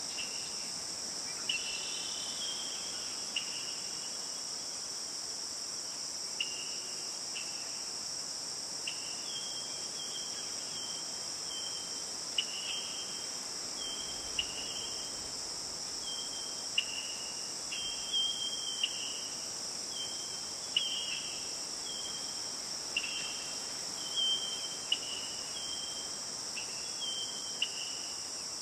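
A steady, high-pitched chorus of crickets and other insects, with short chirping notes repeating irregularly over it every second or two.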